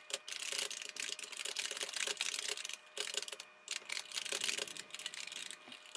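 Fast typing on the keyboard of an IBM PS/2 Model 25-286: a steady run of key clicks, broken by a couple of short pauses about halfway through.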